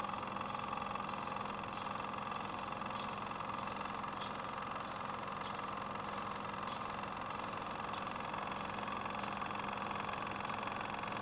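A steady mechanical whirring hum with faint scattered clicks.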